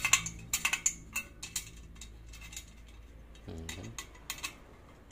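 Light metallic clicks and clinks as a spoke wrench tightens the spokes of a motorcycle spoke wheel in a truing stand, quick at first, then a few scattered ticks.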